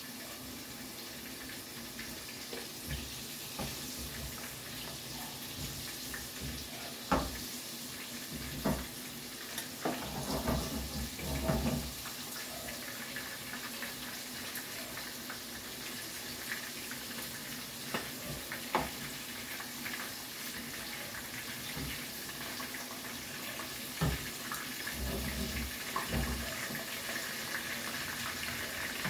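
Battered tempura deep-frying in a saucepan of hot oil: a steady sizzle, with a few sharp clicks of a utensil against the pan.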